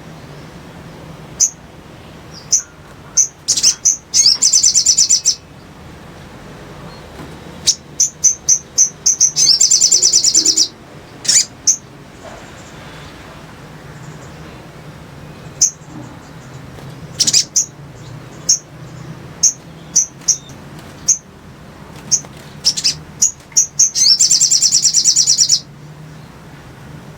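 Little spiderhunter (sogon) calling: sharp single high chips at irregular intervals, broken three times by a rapid, loud trill lasting about a second and a half.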